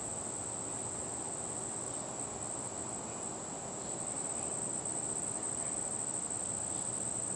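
Insects trilling in one steady, unbroken high-pitched drone over a faint hiss of background noise.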